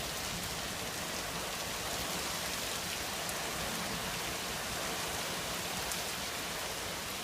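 Heavy rain falling steadily in a storm: an even hiss with scattered drop ticks.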